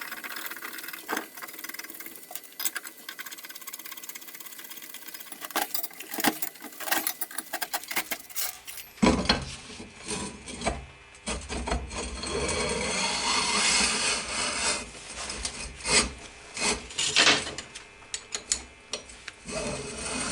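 Workshop tool work on wood: scattered scraping strokes and knocks, then, after a cut about halfway, a louder stretch of dense rubbing and scraping.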